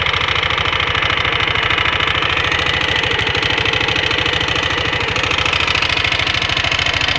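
Aprilia Leonardo 250 scooter's single-cylinder engine idling steadily with an even, rapid pulse and a hissy rattle on top. This is the strange noise the owner is trying to identify.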